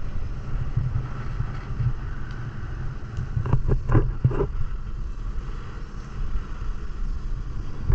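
Steady low rumble of a tow speedboat's engine mixed with wind on the microphone, with a few short louder knocks about three and a half to four and a half seconds in.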